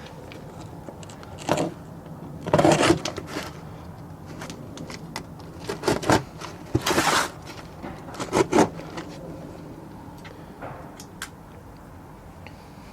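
A cardboard shipping box being opened by hand: several short bursts of tearing, scraping and rustling of cardboard and packing material.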